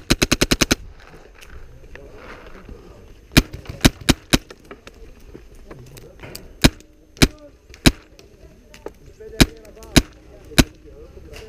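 Replica guns in a skirmish game firing: a fast full-auto burst ending under a second in, then single sharp shots, four close together around three to four seconds in and two more runs of three evenly spaced shots about half a second apart.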